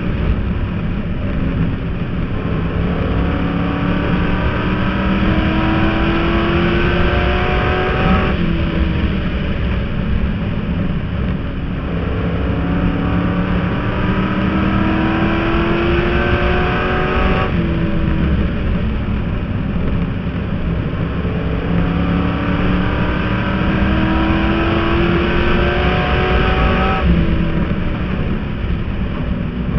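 Stock car's race engine heard from inside the cockpit at speed on the track. Its pitch climbs steadily for several seconds, then drops sharply as the driver lifts off for the corners, three times about nine seconds apart, over loud engine rumble and road noise.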